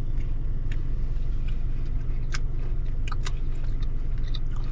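Steady low hum of a car idling, heard from inside the cabin, with people chewing mouthfuls of soft sugar cookie and small crisp clicks scattered through.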